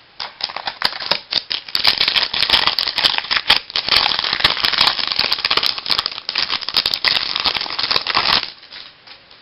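Crinkling and rustling of a foil trading-card pack wrapper and cards being handled: a dense crackle full of sharp little clicks for about eight seconds, stopping abruptly near the end.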